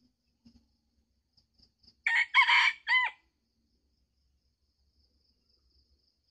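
Red junglefowl rooster crowing once, about two seconds in: a short, clipped crow in three parts lasting just over a second. Faint high insect chirping runs underneath.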